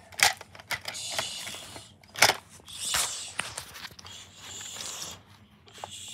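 Handling noise of plastic toys and the phone: a few sharp clicks and knocks, the loudest about two seconds in, between stretches of rustling.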